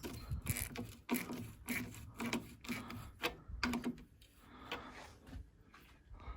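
A hand tool working the nut of a worn anti-roll bar link on a VW Golf 3, metal scraping in regular strokes about two a second. The nut will not come off because the link's thread is stripped. The strokes thin out about four seconds in.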